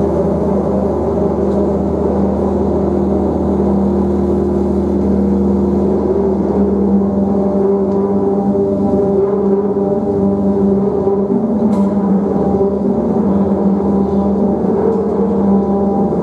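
Live drone music: dense layers of sustained tones, held steady and loud with only slow shifts, in a concrete drain tunnel.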